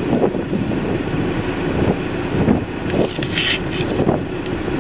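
Wind buffeting the microphone: a steady low rumble with brief gusty surges.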